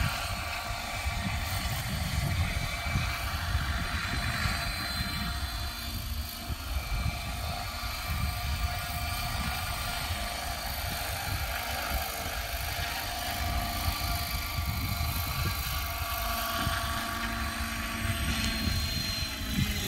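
Align T-Rex 600 radio-controlled helicopter in an MD500 Defender scale body flying low, a steady whine of its rotor and drive, with gusty wind buffeting the microphone. Near the end the whine begins to fall in pitch.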